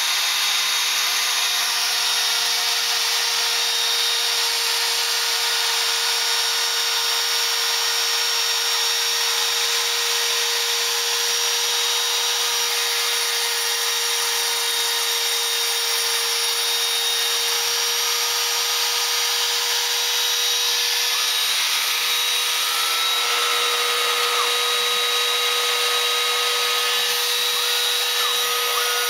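Spindle of a homemade CNC milling machine running steadily: a constant whine over a dense hiss that does not let up.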